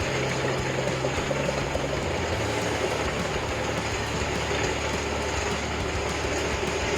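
Wood chipper running: a steady, loud engine hum with a constant mechanical rumble, the engine's low note dropping slightly a little over two seconds in.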